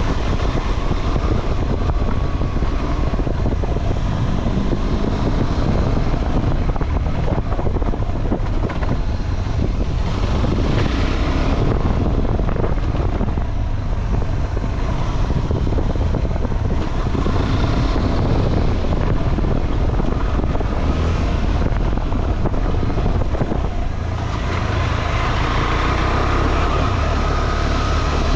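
Motorcycle running along an off-road trail, engine note under heavy wind buffeting on the microphone; the engine picks up again near the end.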